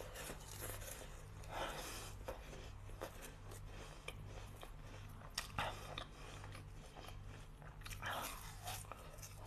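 Close-up mouth sounds of biting and chewing frozen fruit: crunchy bites into the icy flesh, with two sharp cracks a little past halfway.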